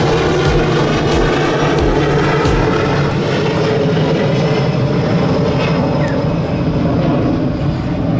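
Boeing 737-400 freighter's twin CFM56-3 turbofan jet engines running loud and steady at take-off power.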